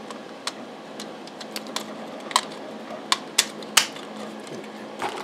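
Irregular sharp plastic clicks and taps from a 3D-printed plastic front panel being handled and turned over, about ten in a few seconds.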